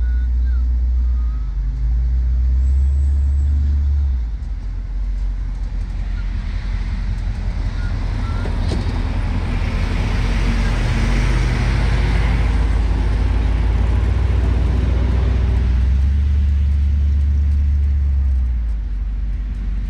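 A 1969 Ford F-250's rebuilt 360 V8 engine running with a steady low rumble. The rumble changes pitch about four seconds in and again near the end, and a hiss swells and fades in the middle.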